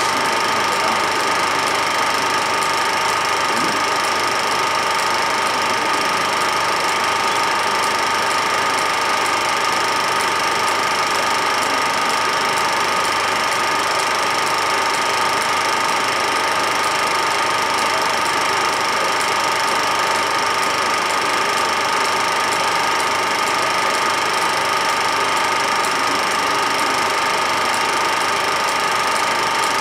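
Film projector running: a steady mechanical whirr with hiss that does not change.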